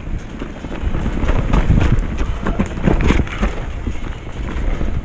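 Mountain bike rolling fast down a dirt singletrack, with wind buffeting the camera microphone and the bike clattering over bumps, busiest in the middle of the stretch.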